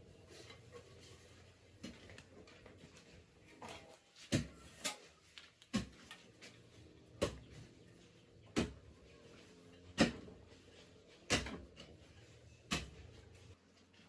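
Sharp knocks or strikes at a steady, unhurried pace, about one every second and a half, starting some four seconds in.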